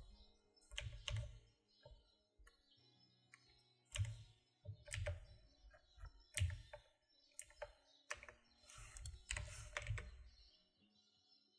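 Faint, irregular keystrokes on a computer keyboard: scattered taps and short clusters with pauses between, busiest about eight to ten seconds in.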